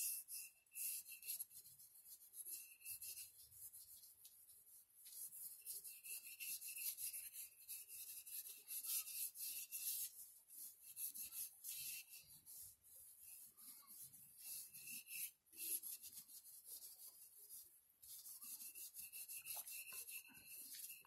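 Cloth rubbing stain into a wooden (oak) AK handguard: faint, fast, scratchy back-and-forth wiping that comes in stretches with short pauses.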